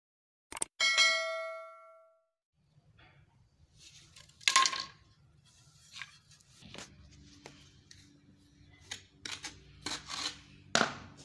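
A bright bell-like chime sound effect strikes about a second in and rings away. After that come sharp scrapes and taps of a steel trowel and a ceramic tile as cement mortar is worked onto the tile, over a faint low hum.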